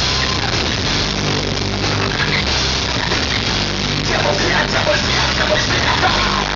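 Live rock band playing loud, with a bass line moving under a dense wall of guitars and drums.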